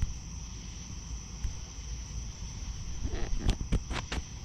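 Steady high-pitched chirring of crickets, with a quick run of clicks and knocks from the GoPro being handled about three seconds in.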